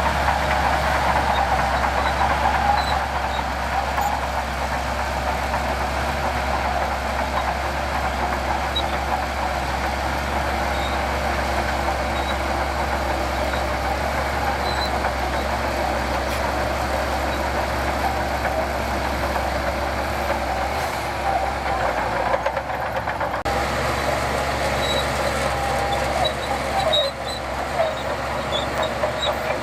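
Heavy diesel earthmoving machinery running steadily under load, with a brief dip in the low rumble about three-quarters of the way through.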